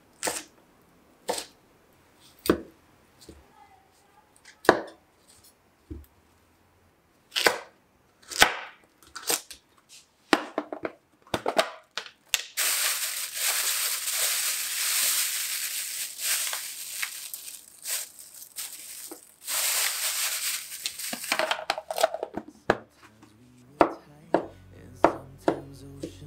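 Chef's knife cutting bell pepper on a wooden cutting board, single knocks about a second apart. Then a plastic bag of frozen garlic is crinkled and rubbed for several seconds. Then quicker chopping of garlic on the board, with background music coming in near the end.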